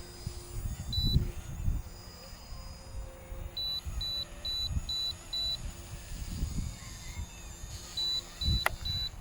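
Short high electronic beeps from the RC helicopter's gear: one about a second in, then a run of five at about two a second, and another run starting near the end. Wind buffets the microphone throughout, with a single sharp click shortly before the end.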